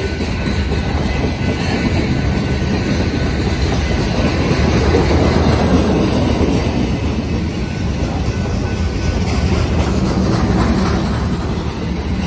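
Coal hopper cars of a passing BNSF freight train, their wheels running over the rails in a loud, steady rush of noise that swells a little midway.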